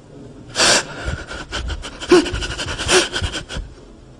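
A man weeping into a desk microphone: a sharp gasping breath about half a second in, then a run of broken, choked sobs with short catches of voice.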